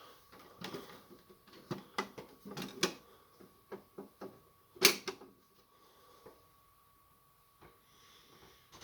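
Samsung laser printer's feed mechanism clicking and clattering irregularly as it starts a print job on thick 160 g card, the loudest knock about five seconds in, then quieter, with a faint steady tone.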